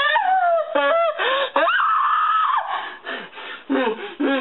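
A young woman's high-pitched shrieks and squeals, several sweeping cries falling in pitch, one held for nearly a second, then breaking into laughter near the end.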